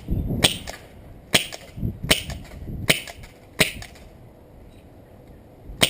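SG9000 CO2 airsoft shotgun firing: five sharp cracks about three-quarters of a second apart, a pause, then one more shot near the end.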